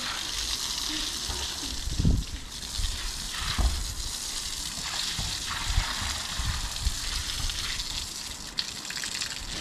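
Water spraying from a garden hose onto a wet concrete yard: a steady splashing hiss, with a few dull low thumps.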